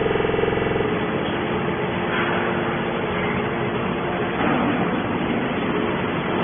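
Hydraulic can baler running: a steady mechanical drone. An even hum of stacked tones sounds at the very start and cuts off under a second in.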